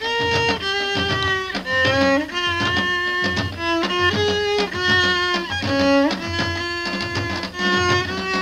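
Instrumental music: a melody of held notes that slide into one another, over a steady low beat.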